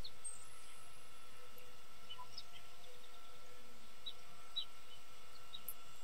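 Female red-winged blackbird giving short chip calls, about eight single notes spaced out over several seconds, over a steady background hum.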